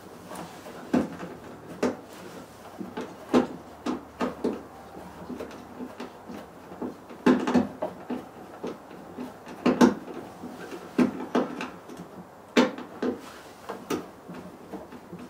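Irregular clicks and knocks of a hand screwdriver and screws being worked loose from the bottom edge of a van's sliding-door trim panel, with a few louder knocks about halfway through and again near the end.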